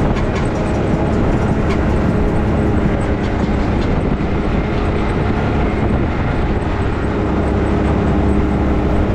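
ATV engine running steadily while riding, a dense, even rumble with a few light clicks in the first few seconds.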